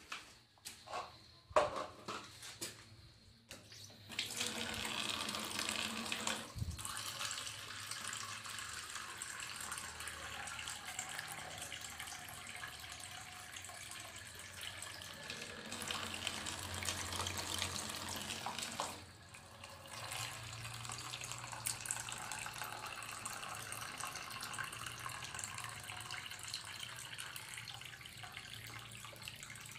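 Water running from a tap into a plastic water scoop held under it, splashing and spilling over into a basin below. A few knocks of plastic being handled come first; the running water starts about four seconds in and dips briefly about two-thirds of the way through.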